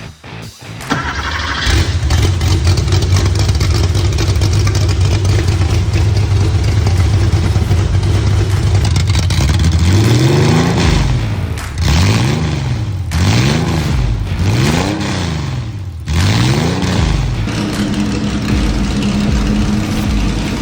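Porsche 911 Speedster's twin-plug 3.6-litre air-cooled flat-six with an aggressive cam, starting about a second in and idling loudly. In the second half it is blipped five times, each rev rising and falling, then settles back to a steady idle.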